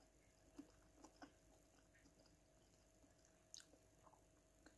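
Near silence with a few faint, soft clicks of a person chewing with the mouth closed.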